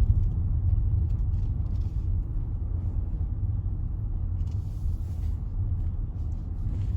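Steady low rumble inside a Range Rover's cabin as it drives slowly: engine and road noise.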